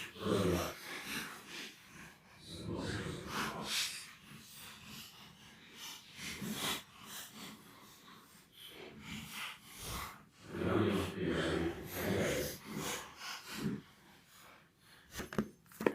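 Someone breathing hard through the nose while prying open the cracked case of a 160 GB iPod, with scattered clicks and scrapes from the case.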